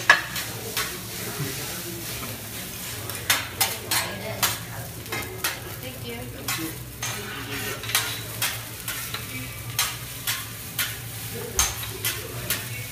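Metal spatulas clacking and scraping on a steel teppanyaki griddle as fried rice is stirred and chopped, with sharp irregular strikes about once or twice a second over the sizzle of the rice.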